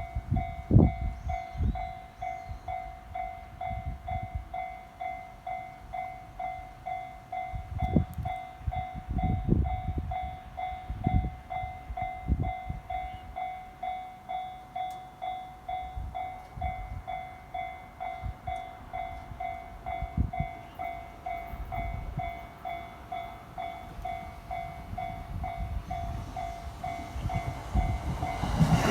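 Japanese railway level-crossing warning bell ringing steadily, an electronic 'kan-kan' of about two strokes a second, with irregular low thumps beneath it. Near the end a train's loud rushing noise sets in as it reaches the crossing.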